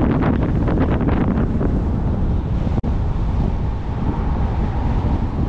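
Wind buffeting a car-mounted microphone over the rumble of tyres and road noise from a car driving, gusting hardest in the first second. The sound drops out for a split second about halfway through.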